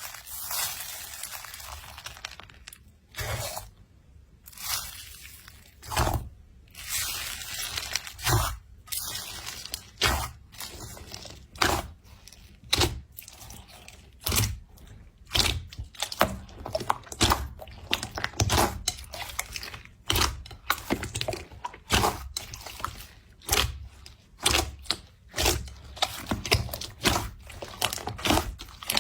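Something crunchy being crushed over and over: a dense, irregular run of sharp crunches and crackles, several a second at times.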